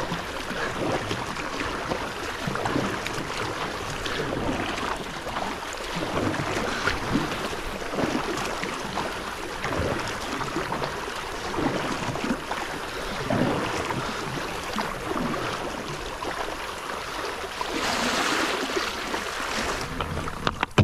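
Kayak paddle strokes dipping and splashing in the water, a soft swell about every second or two, over water washing along the hull. The splashing grows louder and hissier for a couple of seconds near the end.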